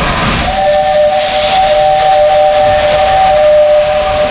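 A steam locomotive's whistle blows one long, steady two-note blast. It starts about half a second in and cuts off sharply near the end, over the hiss of escaping steam.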